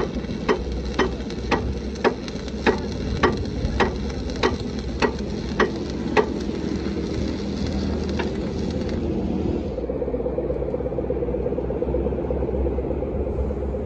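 Arc welding with a stick electrode on a steel truck chassis frame: a steady crackling hiss from the arc, with sharp regular clicks a little under twice a second until about six seconds in. About ten seconds in the hiss stops suddenly and a steady low mechanical hum takes over.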